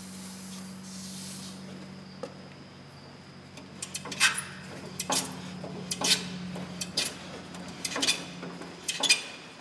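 A trigger spray bottle hisses as it is squirted onto the torch-heated, rusted track-adjuster nut of a crawler dozer. About four seconds in, a hammer starts striking the seized adjuster, a series of sharp metallic blows about once a second, to shock the nut loose.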